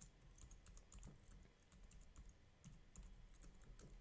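Faint typing on a computer keyboard: a quick, uneven run of keystroke clicks.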